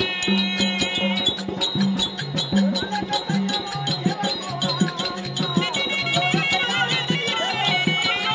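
Tamil Therukoothu folk-theatre music: a high melody moving in held steps over a steady low drone, with quick, continuous drum strokes.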